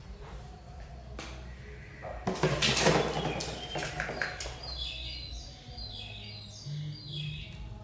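Plastic toy truck rattling and clattering as it rolls across a tiled floor, loudest from about two seconds in, followed by a run of short high chirps.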